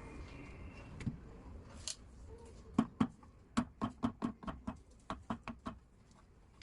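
Light knocks and clicks of mixer grinder motor parts being handled or tapped during repair. A single click comes about a second in and another near two seconds, then a quicker uneven run of three or four knocks a second lasts about three seconds.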